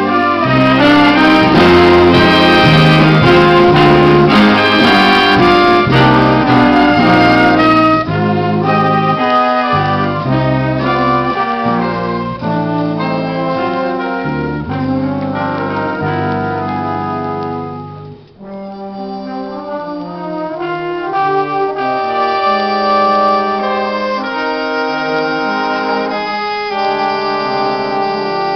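Jazz big band playing live, with trumpets, trombones and saxophones together. The sound is loudest over the first several seconds, dips sharply for a moment about two-thirds of the way through, then carries on somewhat softer.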